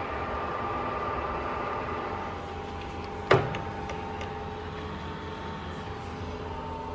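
Colchester Mascot 1600 centre lathe running, its headstock gearing giving a steady hum with a mix of whining tones. About a third of the way in, a single sharp metallic clunk is heard, followed by a few light ticks, as the lever on the spindle-speed selector dial is handled.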